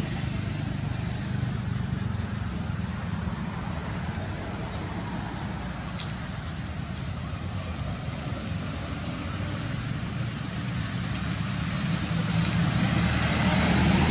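Outdoor ambience: a steady low rumble like distant road traffic, with a faint, rapidly pulsing high-pitched chirping over it. There is one sharp click about six seconds in, and the rumble grows louder near the end.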